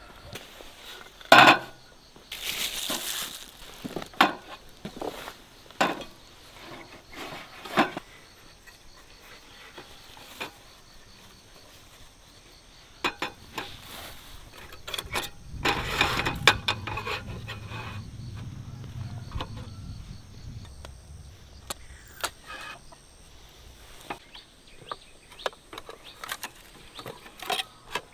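Scattered knocks and clicks of things being handled, with a short rustle about three seconds in and a longer, fuller stretch of rustling around the middle.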